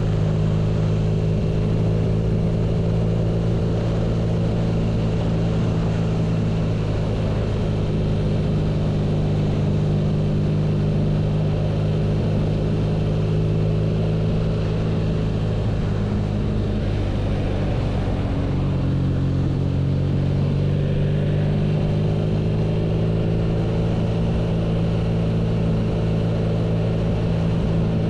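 BMW R nineT's air/oil-cooled boxer twin running steadily under way, its engine note holding at an even pitch. About two-thirds of the way through the pitch shifts slightly and settles again.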